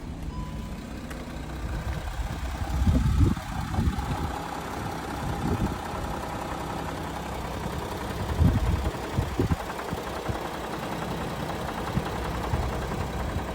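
VW Touareg engine idling just after start-up, running with the noise from the engine that the owner is demonstrating. A few dull low bumps rise over the steady idle, the strongest about three seconds in and again near the middle.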